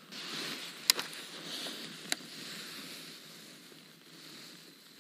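Handling of a fishing rod and spinning reel, with a gloved hand on the reel: rustling, and two sharp clicks, the first about a second in and the second just over a second later.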